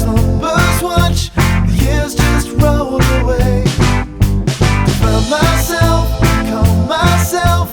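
Background music: an upbeat rock song with a strong bass line and steady drum beat.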